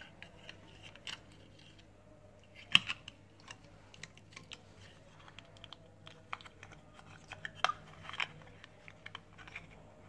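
Small plastic clicks and taps as a power bank's circuit board and battery cells are handled and pressed into its plastic case, with a sharper click about three seconds in and another near eight seconds. A faint steady hum runs underneath.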